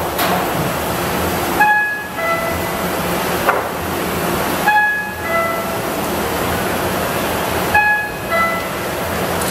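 RYOBI 758P eight-colour offset press giving off a steady machine noise, with a two-note electronic warning chime, a higher tone then a lower one, repeating about every three seconds.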